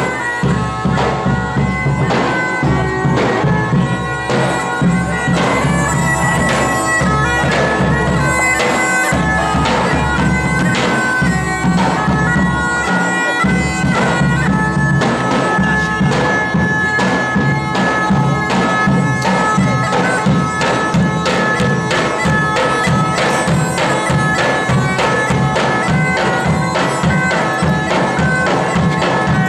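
Bagpipe music with steady drones under the melody and a regular drum beat; the tune shifts to a new phrase about halfway through.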